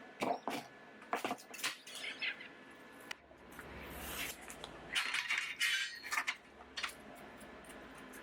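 Light metallic clinks and knocks as steel frame pieces and tools are handled and set in place, a few sharp strikes in quick succession, with a noisy swell in the middle.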